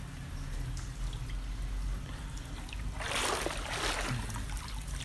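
Shallow floodwater swishing and splashing as someone wades through it, loudest for about a second near the three-second mark, over a low steady rumble.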